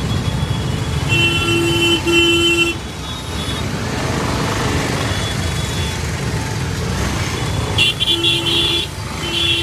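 Congested road traffic: a steady rumble of running motorcycle, scooter and car engines, with vehicle horns honking, two short honks about a second in and more honks near the end.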